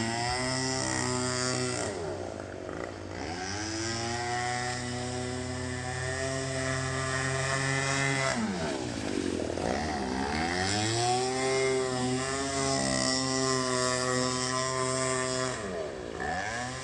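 Two-stroke weed-whacker engine, liquid-cooled, driving an RC speedboat at full speed with a steady high buzz. The tone sweeps three times as the boat passes by.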